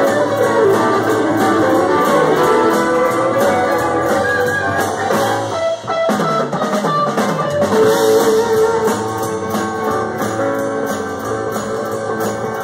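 Live blues-rock band playing an instrumental passage: electric guitar to the fore over drum kit, bass guitar and keyboard.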